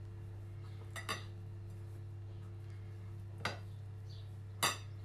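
A few short clinks of a ceramic plate knocking against the counter as a chicken breast is pressed and turned in flour: a double clink about a second in, one more past the halfway point, and the loudest near the end. A steady low hum runs underneath.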